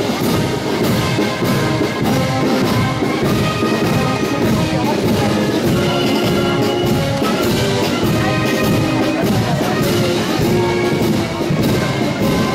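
Brass marching band playing a march, with a steady drum beat under held brass notes.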